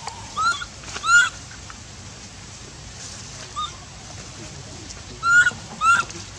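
Infant macaque giving short, high, arched cries, about five of them, a pair near the start, one faint one midway and a pair near the end: the distress calls of a baby monkey left alone by its mother.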